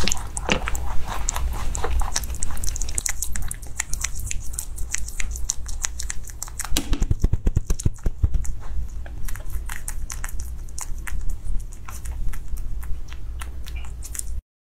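A rabbit chewing and biting food, a rapid run of crisp, crunchy clicks several times a second, cutting off suddenly just before the end.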